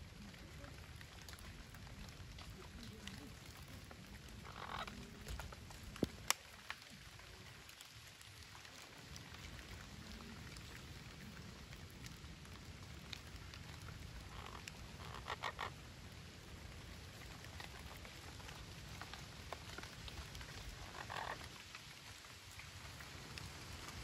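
Three short animal calls, each under a second and made of quick pulses, over a faint steady low rumble. Two sharp clicks come about six seconds in.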